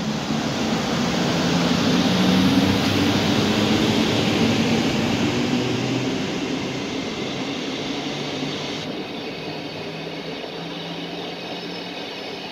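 MÁV class V63 (630) 'Gigant' electric locomotive passing close with a low hum, followed by its passenger coaches rolling by on the rails. Loudest a couple of seconds in, then slowly easing off.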